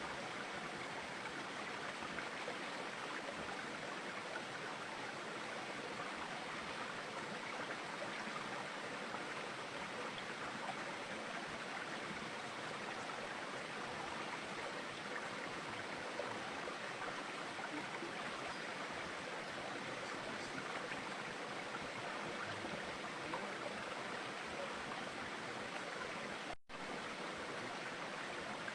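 Steady rushing of running water, like a stream, with one split-second dropout near the end.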